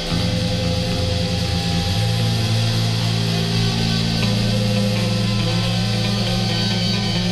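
Instrumental passage of a late-1980s gothic rock recording: band playing, with guitar over held low notes that change every couple of seconds, and no vocals.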